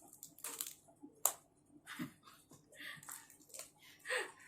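Perfume packaging, a cardboard box and plastic wrapping, being handled by hand: scattered rustles and light clicks, with one sharp click a little over a second in.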